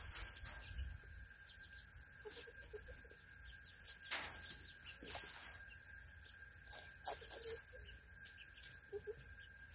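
Faint soft clucks from small chickens, a few short ones in the middle and near the end, with scattered light clicks and a steady high hum.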